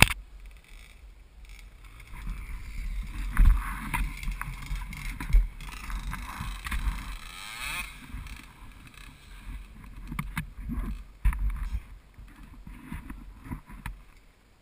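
Muffled, uneven low rumble with thumps and surges, heard through a helmet camera's sealed case while riding a Yamaha quad. The sound falls away at the very end.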